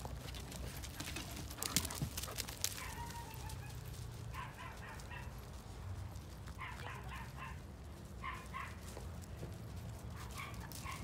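A dog yipping in four short bursts of quick, high yips, a couple of seconds apart. A few sharp clicks come about two seconds in.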